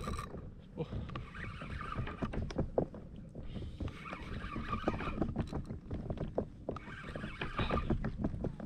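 Fishing reel being wound in against a hooked snapper on a bent rod, its whirr coming in spurts, over water slapping and small knocks against the plastic kayak hull.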